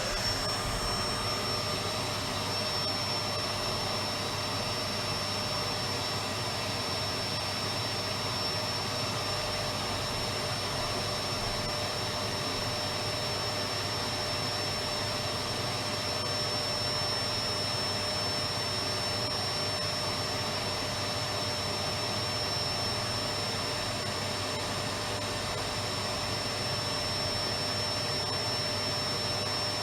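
Electric vacuum cleaner running steadily: a continuous rush of air and motor noise with a high steady whine over it.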